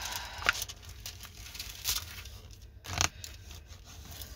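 Crinkling and rustling of the clear plastic cover film on a diamond painting canvas as it is handled and smoothed flat, with a louder crackle about three seconds in.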